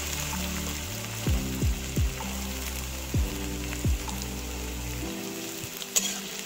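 Chopped onions sizzling in hot oil in a kadai, a steady frying hiss. Background music with deep falling bass notes plays underneath until about five seconds in, and there is a sharp tap near the end.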